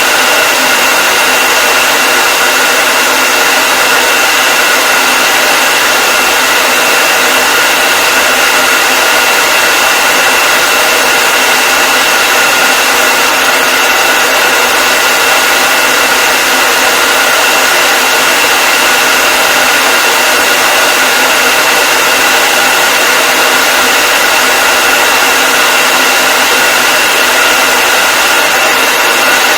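Hair dryer running steadily: a loud, even rush of air with a constant high whine from its fan motor.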